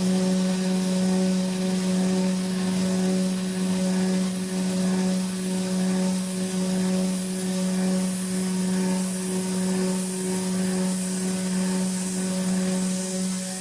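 CNC router spindle milling steel with a small end mill: a steady, unchanging hum at one pitch with a faint hiss over it.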